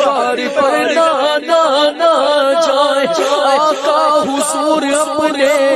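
A man's voice chanting a devotional Urdu poem (naat) in a sung, melismatic melody over a steady held note beneath it.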